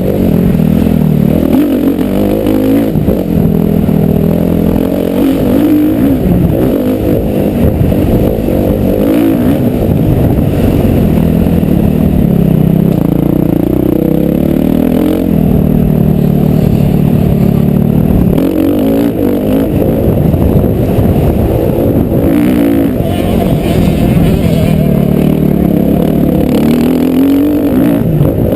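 Motocross bike engine revving hard and easing off again and again, its pitch rising and falling.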